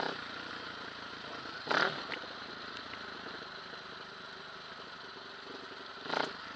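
Dirt bike engine running steadily at low trail speed, with two short loud noisy bursts, about two seconds in and again near the end.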